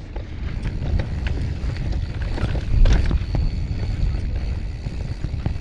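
Mountain bike riding over a rough trail: wind buffeting the microphone as a low rumble, with the bike rattling and knocking over bumps, the hardest jolt about three seconds in.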